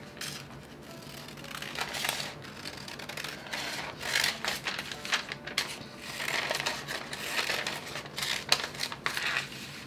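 Scissors cutting through brown kraft pattern paper: a run of irregular snips with the paper rustling as it is held and turned.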